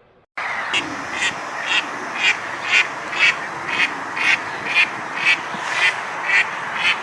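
Duck quacking in an even rhythm, about two quacks a second, over a steady rushing background noise.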